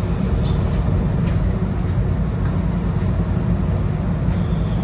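An Enoshima Electric Railway train standing still with its onboard electrical equipment running: a steady low hum, heard from inside the driver's cab.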